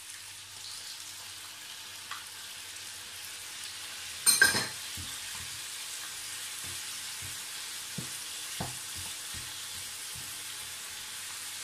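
Pork belly, onion and garlic sizzling steadily in a frying pan as soy sauce is poured in and the pieces are stirred with a wooden spatula. A short loud burst about four seconds in, then a run of light knocks of the spatula against the pan.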